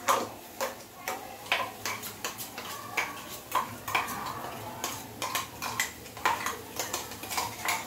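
Metal spoon clinking and scraping against a kadai while soya chunks are stirred, in sharp irregular knocks, two or three a second.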